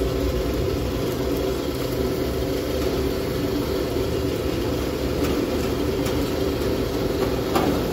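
Steady mechanical hum with a low rumble, unchanging throughout, with a few faint clicks.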